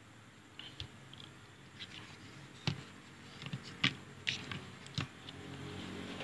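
Handling noise on a workbench: a handful of light, scattered clicks and knocks, the sharpest about two and a half and four seconds in.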